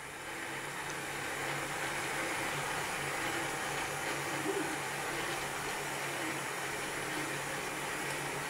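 3D-printed plastic model of a Ford flathead V8 running, its moving parts and front fan turning with a steady whir and a low hum. It fades in over the first second or two.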